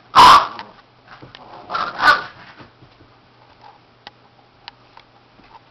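A Chihuahua and a Boston terrier play-fighting, with two short loud outbursts of dog vocalising, the first just after the start and the second about two seconds in, and faint clicks between.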